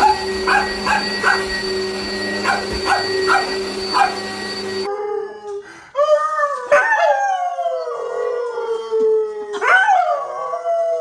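A dog howling in long, wavering, drawn-out calls that rise sharply near the end. Before that, in the first half, comes a run of short yips over a steady hum.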